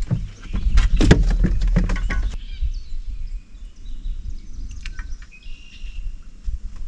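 A quick run of knocks and rattles as a fisherman shifts and handles gear in a small boat for the first couple of seconds, then a quieter stretch with a few short bird chirps.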